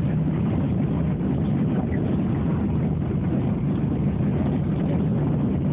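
Steady cabin noise of a jet airliner on its landing approach, heard from inside the cabin: an even, low engine and airflow rush.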